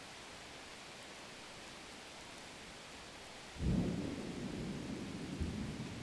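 A steady faint hiss, then a low rumbling noise that starts suddenly about three and a half seconds in and keeps going, rising and falling in strength.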